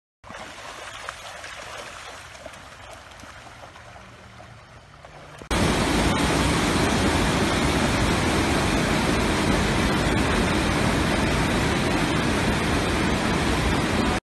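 River water rushing through rapids below a dam spillway. It flows more softly at first, then about five seconds in jumps suddenly to a much louder, steady rush.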